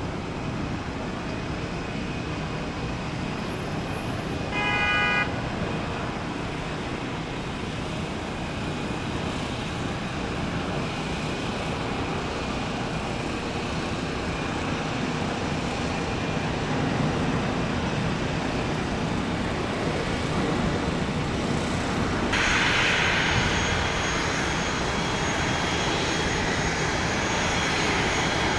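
Jet noise from a landing Airbus A320neo with CFM LEAP engines, touching down and rolling out, over steady road-traffic hum. A brief horn-like toot sounds about five seconds in. About 22 seconds in, a louder, higher jet hiss with a thin whine comes in and holds.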